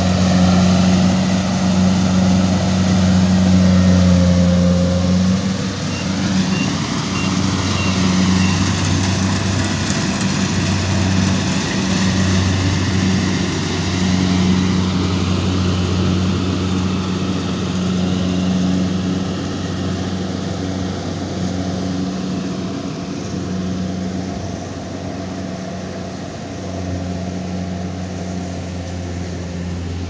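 Compact rice combine harvester's engine running steadily with a low hum as it cuts and threshes, growing slowly fainter as the machine moves away across the field.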